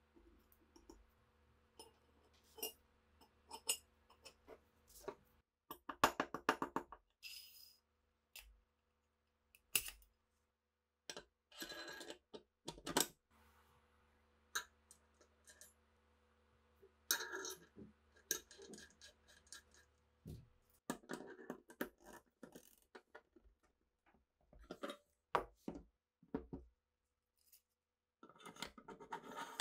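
Small steel parts of an SA-26 submachine gun being reassembled by hand: scattered sharp metal clicks, clinks and short scrapes as a spring, bolt parts and the receiver are fitted, with a quick rattling run of clicks about six seconds in and a flurry of metal-on-metal sliding near the end.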